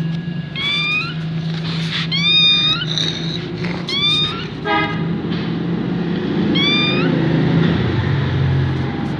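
Young kitten mewing, about five short high calls that rise in pitch and level off, spread over several seconds, over a steady low hum.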